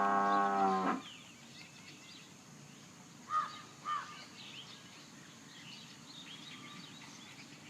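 A buffalo's long, low, steady bellow ends about a second in. Birds call over quiet outdoor ambience, with two short, louder calls half a second apart near the middle and faint chirping throughout.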